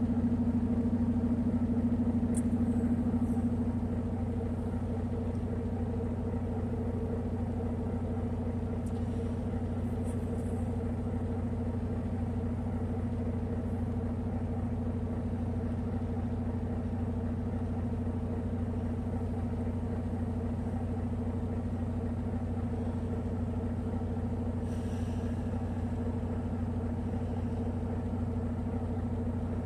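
Semi-truck diesel engine idling steadily, a little louder for the first few seconds and then settling to an even hum, with a few faint high ticks.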